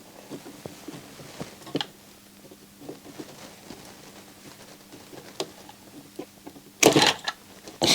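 Faint scattered clicks and small taps of pliers and a soldering iron working at a transistor on a circuit board, with a brief louder noise near the end.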